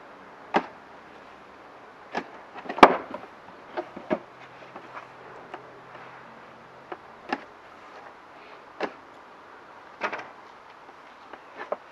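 Cardboard packaging being opened and handled: packing tape slit and cardboard boxes knocked and slid about, heard as scattered sharp knocks and rustles, the loudest about three seconds in.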